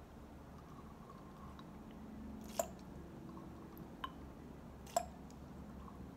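Plastic transfer pipette squishing as it draws up and releases liquid over a plastic bottle, with a few dripping sounds. Three sharp clicks come about two and a half, four and five seconds in.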